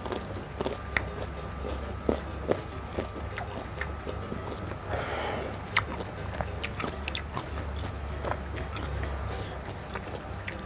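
Close-miked eating: biting and chewing food, with many short mouth clicks and smacks scattered through, over a steady low hum.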